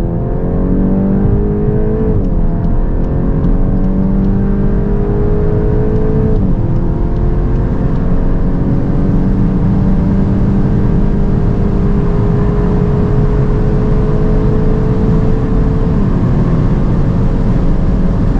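Volkswagen Golf GTI Edition 50's turbocharged 2.0-litre four-cylinder, with its standard exhaust without active valves, pulling at full throttle from 100 to 200 km/h. The engine note rises steadily in each gear and drops at upshifts about two, six and a half and sixteen seconds in, each gear lasting longer than the one before.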